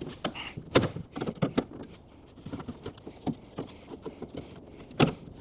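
Irregular knocks and clicks as a tight new rubber window seal is forced into a truck door's glass channel, the loudest knocks about a second in and near the end.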